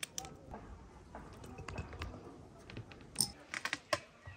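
Hands pitting ripe cornelian cherries: soft squishes of the fruit and light, irregular clicks and taps on a metal tray, with a quick run of sharper clicks about three seconds in.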